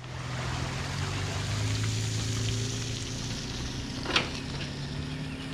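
A motor running steadily: a low hum under an even hiss, with one sharp click about four seconds in.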